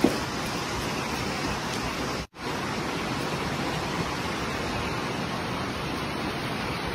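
Steady rushing noise that cuts out completely for a moment about two seconds in.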